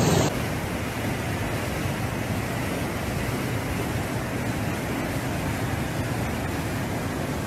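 Swollen river of floodwater rushing and churning in rapids: a steady, even rush of water. It cuts in just after a brief louder sound at the very start.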